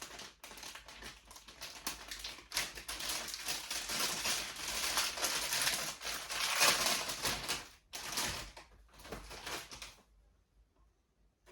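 A packet of marshmallows being opened and crinkled: a dense, crackling rustle of packaging that stops abruptly about ten seconds in.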